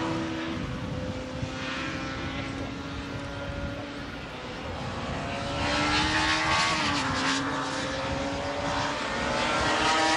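Production racing motorcycles at high revs as they pass, several engines sounding at once. The sound fades to its lowest about four seconds in, then builds again as more bikes come by.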